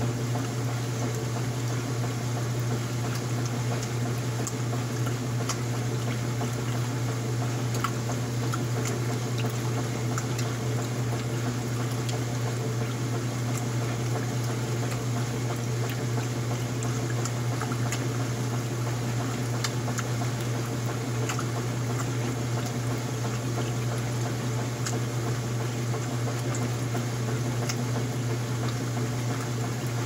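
Old top-loading washing machine agitating water in its empty tub: water sloshing and churning over a steady low motor hum.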